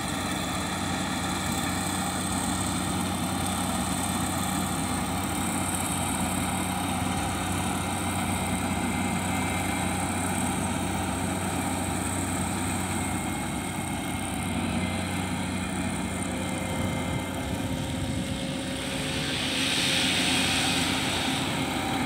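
Rice combine harvester running steadily as it cuts and threshes rice, a continuous engine hum. It grows briefly louder with a hiss near the end.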